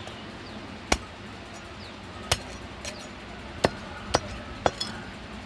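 Heavy cleaver chopping through a singed goat head on a wooden stump block: five sharp blows, the last three about half a second apart, as the skull is split.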